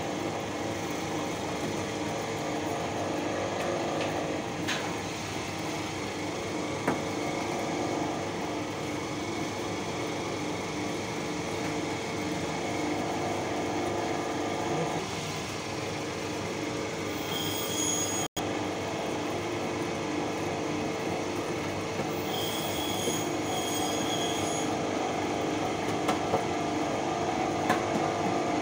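Electric meat grinder running steadily, its motor humming with a constant whine as the auger forces beef chunks through the mincing plate. A thin high squeal comes in briefly twice past the middle.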